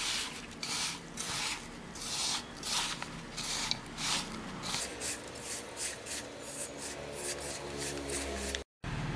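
A hand rubbing and squeezing a dry, crumbly mix of powdered beaten rice, jaggery and grated coconut in a steel bowl: rhythmic rasping strokes, about two a second. The sound drops out for a moment near the end.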